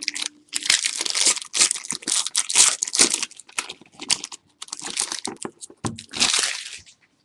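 Foil wrapper of a Playbook football card pack crinkling and tearing as it is ripped open and the cards are pulled out. The rustling comes in irregular spells and stops shortly before the end.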